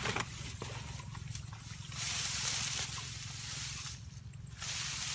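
Dry grass and brush rustling and crunching under footsteps in noisy bursts, with a few light knocks; near the end a hoe blade scrapes into the dry grassy ground.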